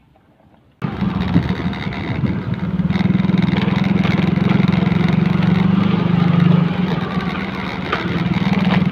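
Motorcycle engine running steadily while riding, with a rush of wind and road noise; it starts suddenly about a second in.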